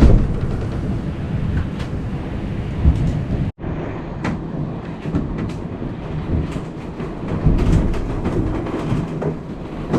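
Rough, steady rumble of wind and sea aboard a sailing yacht in stormy weather, with scattered knocks and clicks. The sound cuts out suddenly for an instant about three and a half seconds in.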